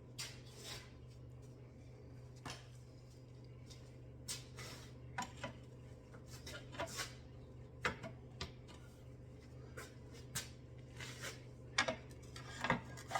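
Scattered light metallic clinks and knocks of hand tools against the car's front suspension parts, a few sharper ones near the end, over a steady low hum. This is work to pop the CV axle out.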